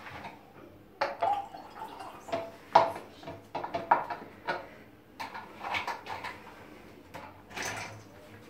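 Glass jars and dishes clinking and knocking on a kitchen counter in a series of sharp strikes, with water poured from a bottle into a glass jar.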